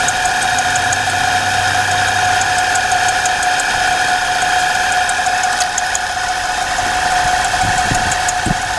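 Nissan Cube Cubic engine running at idle with a steady, high-pitched drive-belt squeal: an abnormal belt noise that won't stop. A couple of low thuds come near the end.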